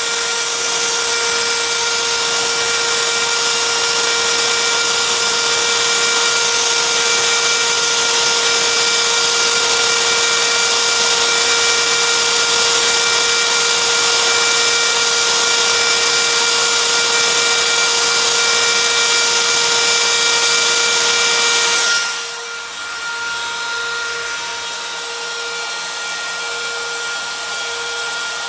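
CNC router spindle whining steadily as a fine engraving bit cuts into wood, with a loud hiss of cutting. About 22 seconds in, the cutting hiss drops away and the spindle whine goes on more quietly.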